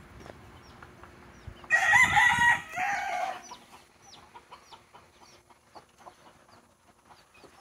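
A gamefowl rooster crows once, starting about two seconds in and lasting about a second and a half, with a short break near its end. Faint high chirping goes on underneath.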